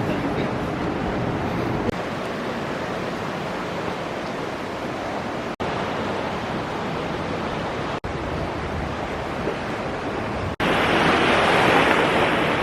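Sea surf washing against the shore, with wind on the microphone. It gets louder about two-thirds of the way through, and it breaks off briefly three times.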